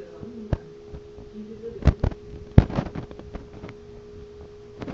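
Sharp clicks and knocks of a steel tape measure handled against a metal vent frame, one about half a second in and a loud cluster about two seconds in, over a steady hum.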